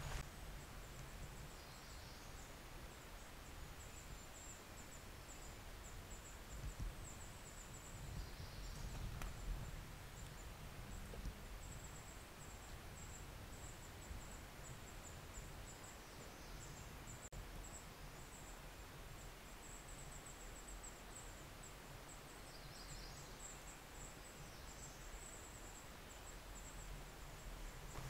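Quiet forest ambience: a faint, high, steady chirring runs through it, with a few brief bird chirps now and then over a low rumble.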